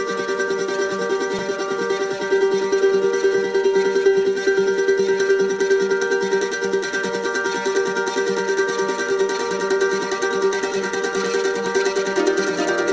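Music on a plucked string instrument played with fast tremolo picking, holding long steady notes, with a change of note near the end.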